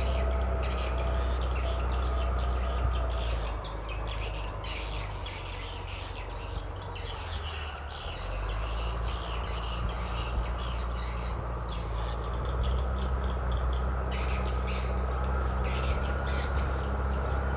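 Engine of a large paddy-field leveling machine running with a steady low drone and a thin steady whine above it. The drone eases off for a few seconds about four seconds in, then comes back. Insects chirp and birds call throughout.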